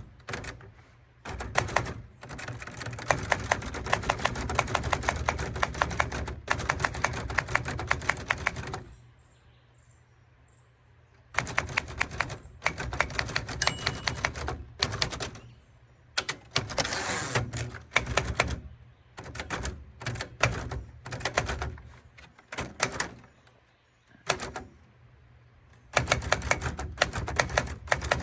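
Typewriter being typed on: fast runs of key strikes broken by short pauses, with a longer pause of about two and a half seconds about a third of the way in.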